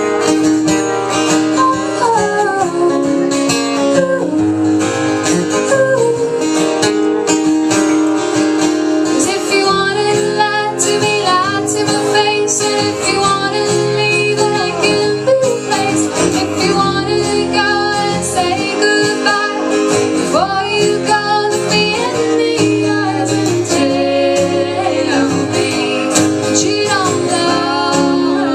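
Live country song: an acoustic guitar strummed steadily under a singing voice.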